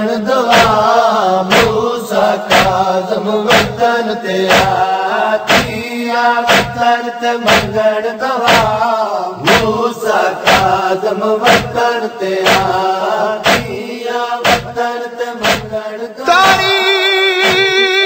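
A nauha, a Shia lamentation, chanted by a male voice over a steady beat of sharp strokes about twice a second. Near the end the beat drops away and held, wavering sung notes take over.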